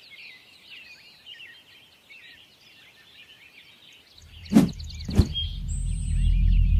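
Many small birds chirping steadily in the background. About four seconds in, a low droning rumble comes in and grows steadily louder, with two sharp knocks about half a second apart.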